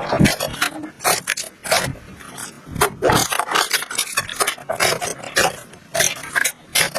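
Slime being squeezed and kneaded by hand, making dense, irregular sticky crackles and clicks, several a second.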